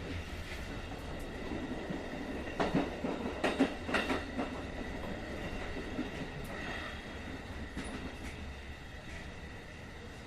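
A steady low rumble, with a run of clattering knocks about two and a half to four and a half seconds in.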